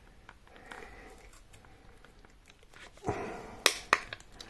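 Quiet handling of a smartphone being opened on the repair bench: a short rustle about three seconds in, then two sharp clicks close together.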